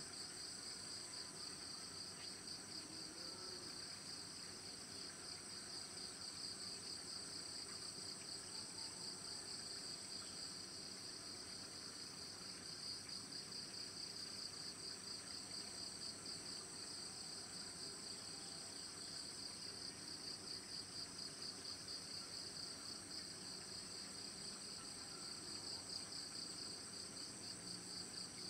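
Insects chirping steadily in a high, rapidly pulsing trill, with faint background hum beneath.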